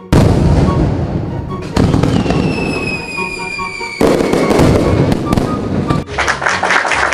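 Fireworks going off: three loud bursts, with a whistle falling in pitch between the second and third, then clapping from about six seconds in.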